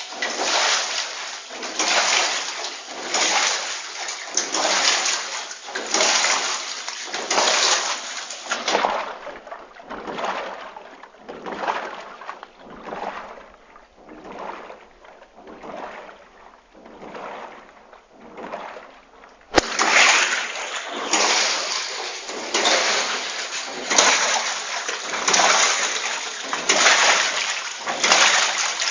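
Water in a wave-energy model tank splashing and sloshing in rhythmic waves, about one surge a second. The surges fade for a while, then turn abruptly louder again about two-thirds of the way through.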